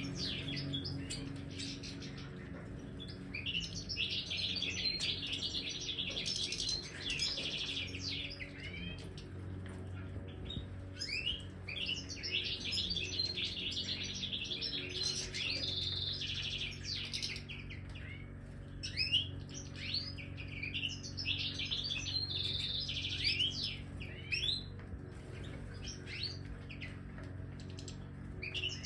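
Flock of European goldfinches of the large Major form twittering and singing. Bouts of fast, high trilling run several seconds each, with quick rising and falling chirps in between.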